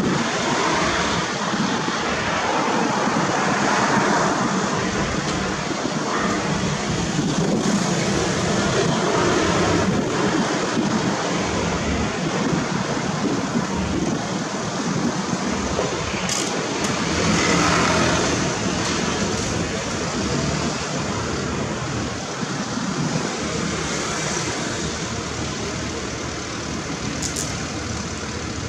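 Steady road traffic and vehicle engine noise, running on evenly without any distinct sudden sound.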